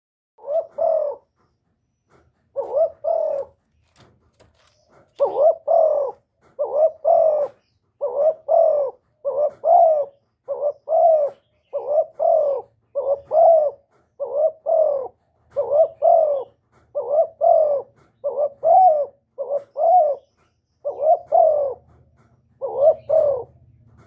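Spotted dove cooing: short two-part coos, repeated about once a second, with a pause of a couple of seconds near the start.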